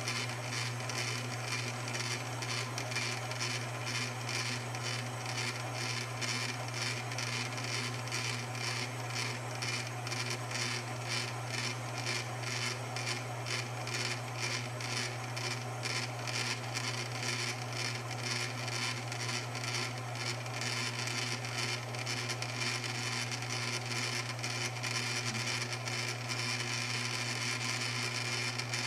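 Cowells 90 ME lathe running in back gear while facing cast iron with a 5/16-inch tool bit: a steady motor hum under a scraping cutting noise that pulses about twice a second.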